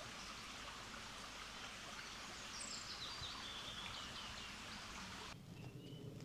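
A songbird singing a quick run of high chirps that step down in pitch, over a steady rushing hiss of outdoor noise. The hiss cuts off abruptly a little over five seconds in, leaving fainter bird chirps.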